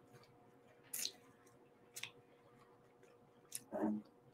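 Chewing a mouthful of food close to the microphone: a few soft, wet mouth clicks about a second apart, then a short hummed "mm" near the end.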